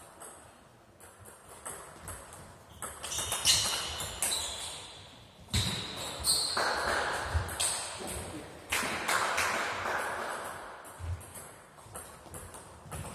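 Table tennis ball clicking off the rackets and table in a rally, echoing in a large sports hall, with a string of quick sharp ticks in the first few seconds.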